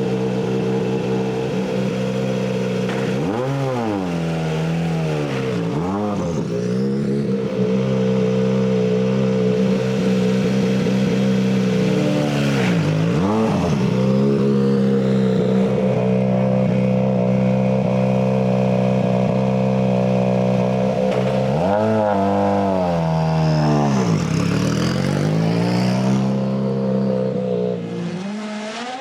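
Rally car engine running hard at high revs. Its pitch falls away and climbs back three times as the revs drop and build again.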